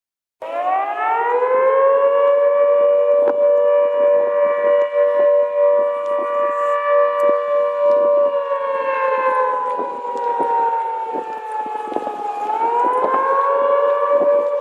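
Air raid siren sounding a wail. It starts about half a second in and winds up quickly to a steady two-note chord. After about eight seconds it falls slowly in pitch, then winds up again near the end.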